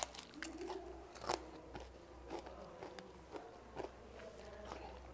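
Quiet crunching and chewing of crispy fried chicken being eaten, with scattered short sharp crunches and clicks, the loudest about a second in.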